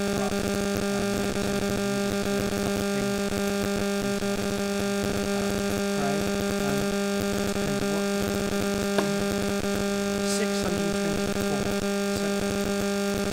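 Steady low electrical mains hum with fainter higher buzzing overtones, holding one unchanging pitch.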